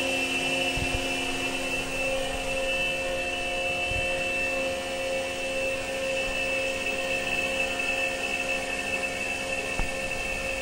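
CNC milling machine running while it machines 304 stainless steel trim plates: a steady high whine over a lower hum, with no break.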